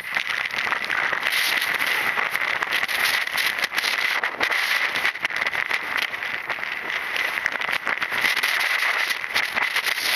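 Storm-force wind buffeting the microphone of a Nikon KeyMission 170 action camera: a loud, continuous rushing noise full of irregular crackles, with a steady high-pitched whine.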